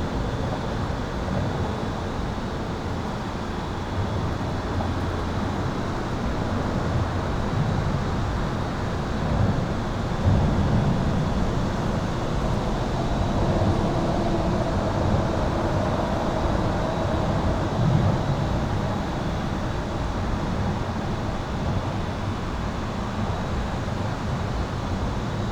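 Continuous highway traffic heard from beneath an overpass: a steady rumble of tyres and engines, swelling a little as heavier vehicles pass about ten seconds in and again near eighteen seconds. A faint steady high-pitched tone runs beneath it.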